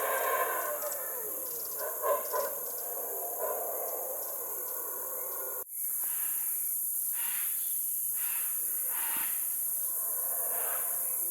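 Wildlife sounds: a steady high insect buzz under overlapping bird calls. Just before halfway the recording cuts, and short, harsh cawing calls follow, repeating about once a second.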